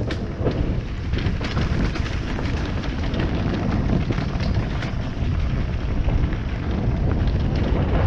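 Kawasaki dirt bike ridden over a rocky trail: engine running under heavy wind buffeting on the microphone, with a steady run of knocks and rattles from loose stones.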